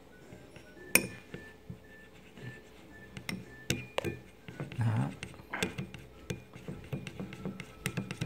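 Wooden chopsticks clicking against a small ceramic bowl as wasabi is whisked into soy sauce: scattered light clinks, a sharper one about a second in, then quicker, more even clicking in the second half.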